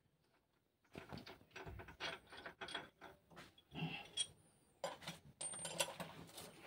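Hand tools and metal engine parts clinking and knocking during hand work on a stripped engine block. It is a string of irregular light clicks and taps, with a brief high metallic ring twice near the middle.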